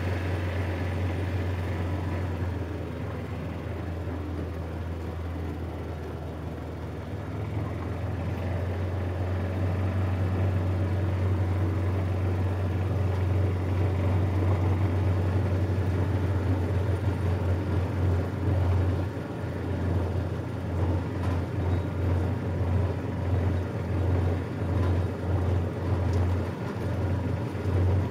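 Engine of a John Deere ride-on lawn tractor running steadily as it drives, heard close up from on board. About two-thirds of the way through, its sound turns uneven and pulsing.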